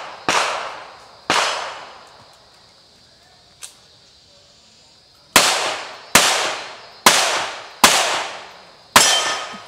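Handgun shots fired at steel targets: two sharp cracks about a second apart, then a pause of about four seconds broken by a faint click. Five more shots follow at roughly one a second, each crack trailing off in a short echo.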